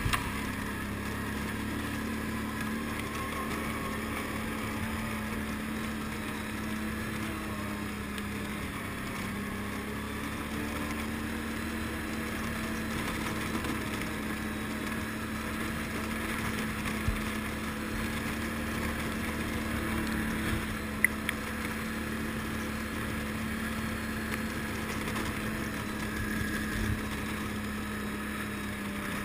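ATV engine running at a steady speed as the quad climbs a trail, with a couple of sharp knocks about two-thirds of the way through.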